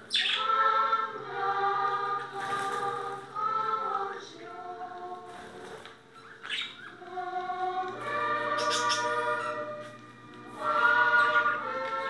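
A choir singing in several voices, in slow phrases of held notes with short breaks between them, and a steady low note held beneath some phrases.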